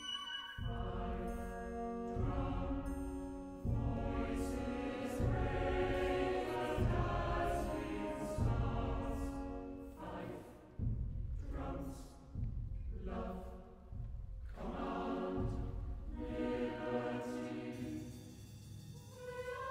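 Mixed choir with orchestra singing short, separated chords on the words "fife", "drum", "voices raise the dazzling stars" and "command liberty", each chord broken off by a rest. The music quietens near the end.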